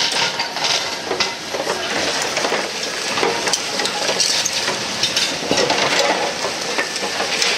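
Broken concrete rubble crunching, grinding and clattering as the steel attachment of a Hybrid Cosmo 2000 secondary crusher excavator pushes and presses into the pile, with many small knocks of chunks tumbling against each other.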